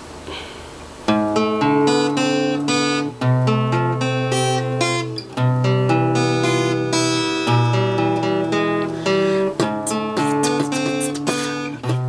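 Cutaway acoustic guitar played alone, coming in about a second in with a run of picked chords over changing bass notes.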